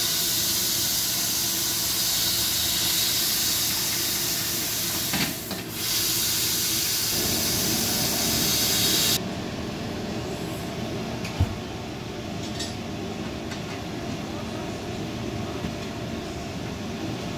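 Compressed air hissing hard and steadily, with a brief break about five seconds in, then cutting off suddenly after about nine seconds. Lower steady noise follows, with light clicks and one sharp knock.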